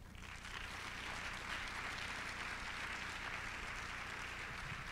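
Audience applause, faint, swelling over the first second and then holding steady.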